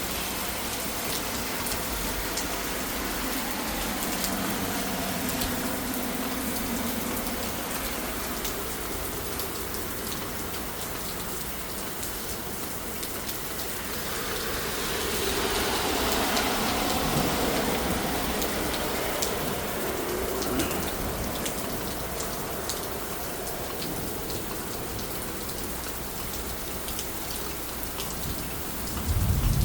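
Heavy rain falling steadily, with a louder swell of the noise about halfway through.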